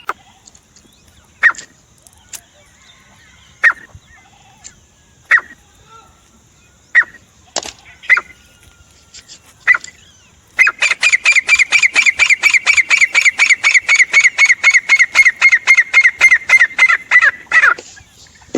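Francolin (teetar) calling: single sharp notes every second or two, then a fast run of ringing notes, about five or six a second, lasting some seven seconds.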